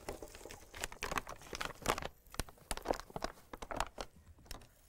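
Paper bag of flour crinkling and rustling as it is handled, in a run of irregular sharp crackles.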